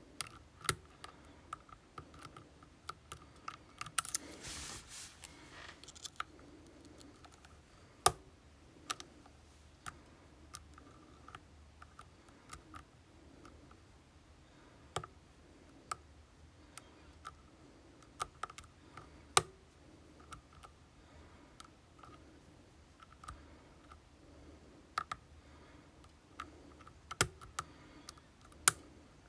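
Small, irregular metallic clicks and ticks from picking tools working in an ASSA Twin Combi lock cylinder, with a short scrape about four seconds in.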